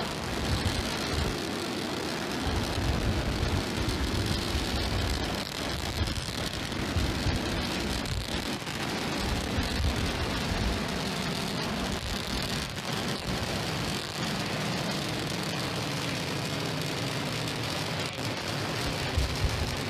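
Starship SN8's three Raptor rocket engines running at full burn during ascent: a steady deep roar with constant crackling.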